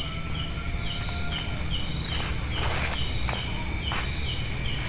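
Night insects: a cricket chirping evenly, about two and a half short chirps a second, over a continuous high insect drone. A few footsteps scuff on the ground about halfway through.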